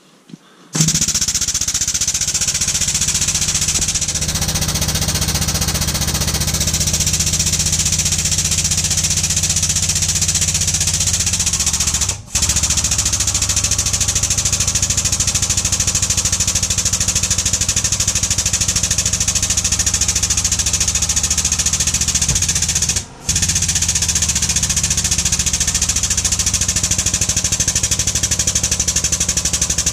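Powered hydraulic workshop press running under load as its ram pushes a sleeve onto the inner race of a front hub bearing, a loud steady mechanical chatter. It starts about a second in and cuts out briefly twice.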